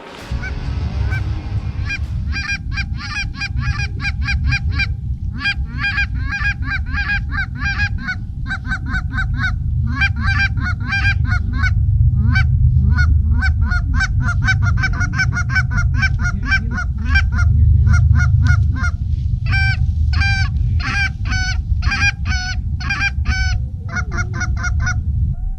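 A large flock of geese honking continuously, many calls a second overlapping, over a heavy low rumble.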